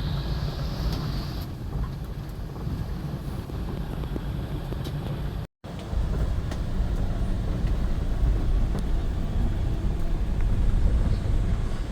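Road vehicle on the move: a steady low rumble of engine and road noise, cut off for a moment about five and a half seconds in and a little louder after.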